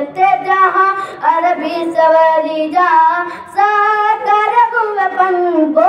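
A boy singing a devotional naat in a high voice, holding long notes that bend and slide in pitch.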